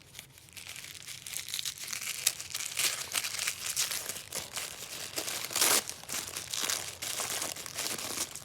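Gift wrapping around a small package of thread being opened by hand: a continuous run of irregular paper or plastic crinkles and rustles, loudest about five and a half seconds in.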